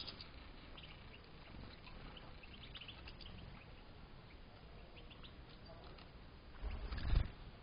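Faint, scattered short chirps from a room of European goldfinches. Near the end a loud low rumble lasts about half a second.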